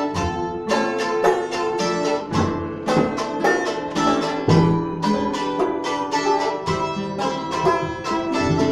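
Live acoustic string band playing a brisk tune: banjo and acoustic guitar picking quick, evenly spaced notes, with accordion chords held underneath.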